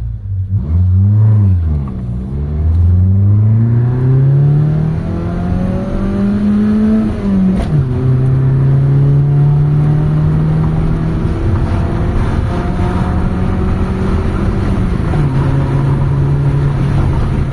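Mitsubishi Lancer's 4G13 four-cylinder engine pulling hard under acceleration: the revs climb steadily through a gear for several seconds, drop sharply at a gear change about halfway through, then run on at higher road speed with another dip near the end. This is the car on test after a carburetor repair for low power, now with a good throttle response.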